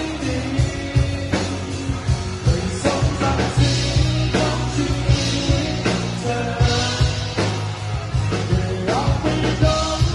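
Live rock band playing: a singer singing over electric guitar, bass guitar and drum kit, with a steady drum beat.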